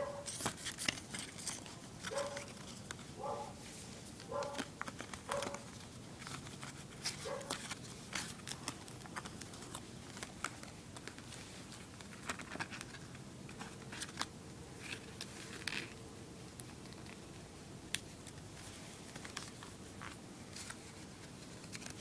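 Paper inserts and small cardboard boxes from an iPhone 4 package being handled: rustling, crinkling and light taps throughout, with a few short squeaks, about one a second, in the first seven seconds.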